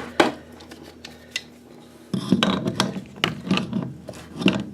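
A click, then from about two seconds in, repeated short scraping and rubbing strokes as the toilet supply hose's coupling nut is turned by hand onto the new fill valve's threaded shank to tighten it.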